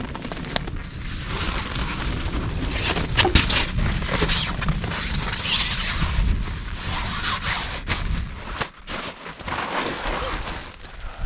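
Rain and gusting wind beating on a polyester tarp shelter, with constant crackling spatter and a low rumble.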